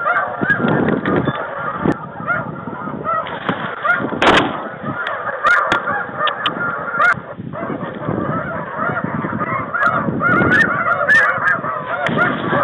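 A flock of snow geese calling: a constant chorus of overlapping high yelping honks, with a few brief sharp clicks scattered through it.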